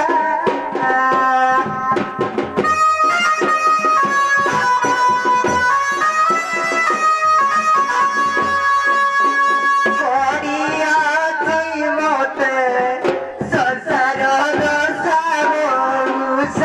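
Folk music with a steady hand-drum beat under a melody of held notes; about ten seconds in, the melody turns into a wavering, sliding line.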